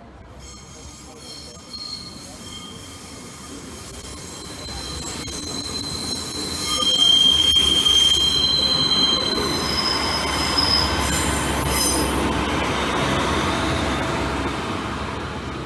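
Class 142 Pacer diesel railbus pulling away and passing close by, its wheels squealing in several steady high tones over a low rumble. The noise builds to its loudest about seven seconds in and eases off near the end. The squeal is the flange squeal that these four-wheeled, rigid-wheelbase Pacers are known for.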